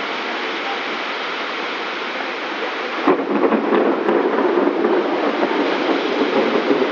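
Heavy rain falling steadily on a flooded street. About three seconds in, the sound turns suddenly louder and rougher as vehicles drive through the floodwater close by, their tyres throwing up water.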